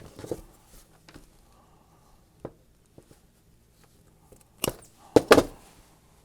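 Workbench handling noises as parts and tools are moved: light scattered clicks, then three sharp knocks close together near the end.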